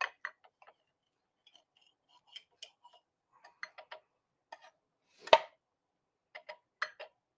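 Knife slicing a toasted sandwich on a cutting board: scattered light clicks and taps, with one sharper knock a little past five seconds in.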